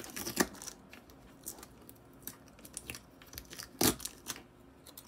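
Fingernails picking at and peeling tape off a wooden cigar box lid: scattered scratches and small clicks, with a short rip of tape a little under four seconds in.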